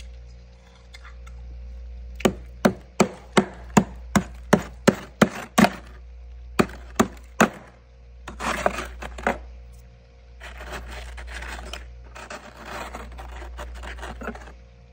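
Metal spoon chipping at hard frost inside a freezer: a run of about a dozen sharp taps, roughly three a second, then scraping and crunching as the loosened frost is raked up. A steady low hum runs underneath.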